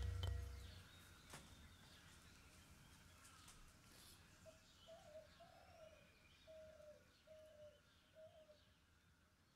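Music fades out in the first second, leaving faint outdoor ambience in which a bird gives a short run of six low cooing notes, from about halfway through to near the end.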